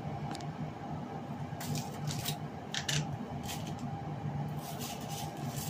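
A few short rustles and clicks from handling things on a kitchen counter, over a steady low hum.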